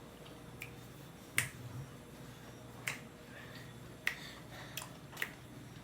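A handful of short, sharp clicks and taps from someone eating off a plate, about six in all and irregularly spaced, the loudest about one and a half seconds in.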